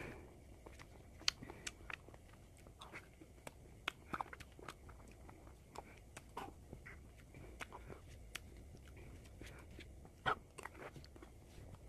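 Close-up eating sounds of ice cream: soft bites, wet chewing and scattered sharp mouth clicks, with two louder snaps about a second in and near the end.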